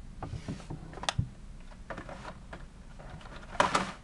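Clicks and crackles of a plastic blister-packed toy car card being handled, with a sharp click about a second in and a louder crinkling cluster near the end.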